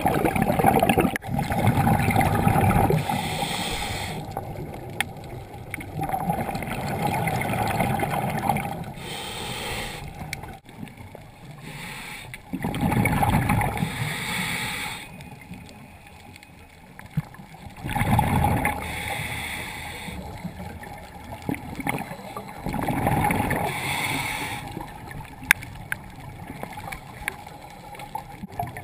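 Scuba diver breathing through a regulator underwater. A rumble of exhaled bubbles lasting a couple of seconds alternates with a short hiss on each inhale, a breath about every five seconds.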